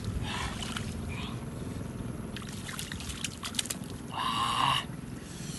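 Hands working through wet mud and shallow water: wet sloshing and squelching with scattered small clicks. About four seconds in comes a brief, held, voice-like cry.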